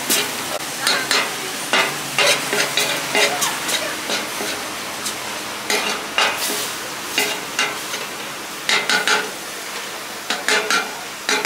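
Food frying with a steady sizzle on a hot pan, stirred with a utensil that clacks and scrapes against the pan in irregular bursts.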